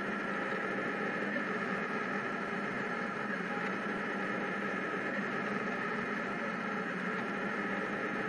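Rostock delta 3D printer running a calibration print: a steady whir and hiss of its motors and fans, with several constant tones and no sudden changes.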